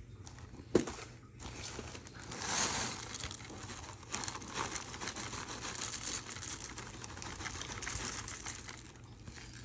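Alpen muesli poured from its cardboard box onto a smoothie bowl: a long dry rattling, crinkling pour in uneven surges, after a sharp tap about a second in.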